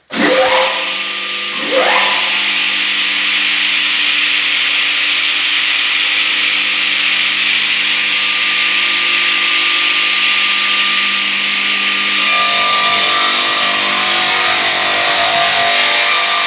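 Circular-saw edging machine starting up: two rising whines as its saw motors spin up one after the other, then the blades running steadily. About twelve seconds in the sound turns louder and rougher as the saws begin cutting timber.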